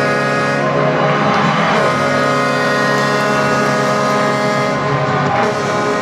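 Arena goal horn blaring after a goal, a loud multi-tone chord held steady.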